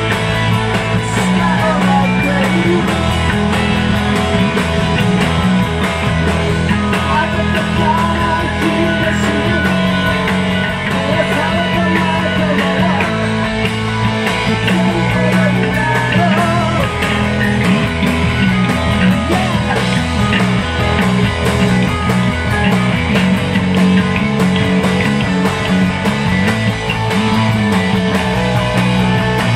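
Rock band playing live and loud: electric bass and drums driving a continuous, full-band song.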